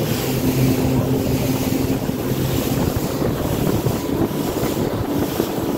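Speedboat engine running at speed, with heavy wind noise on the microphone and water rushing and spraying past the hull.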